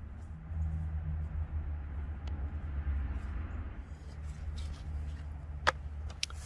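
Low, steady outdoor background rumble, with a single sharp click near the end.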